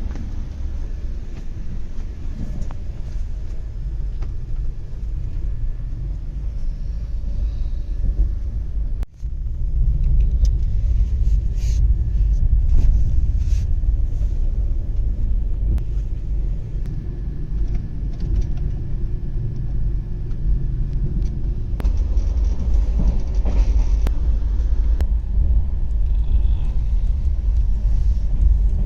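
Passenger train running, a steady low rumble of the coach on the rails; it breaks off for an instant about nine seconds in and comes back a little louder.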